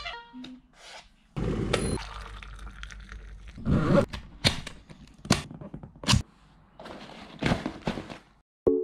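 A phone alarm melody cuts off right at the start. Then hands handle luggage: a suitcase zipper and combination lock being worked, with a series of sharp clicks and knocks and bouts of rustling.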